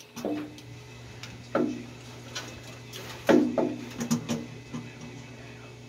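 Scattered light knocks and clicks of parts and wiring being handled and pressed against the truck's firewall under the dashboard, about half a dozen in all, over a steady low hum.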